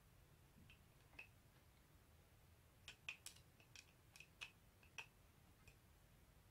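Faint, sparse small clicks of a screwdriver tip working the screw that holds the cap on top of a Sony Betamax VCR's video head drum, most of them in a cluster from about three to five seconds in.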